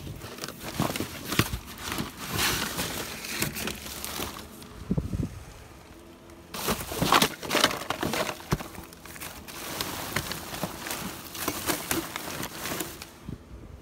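Plastic garbage bags rustling and crinkling as they are pulled and shifted, in two spells with a short lull about five seconds in.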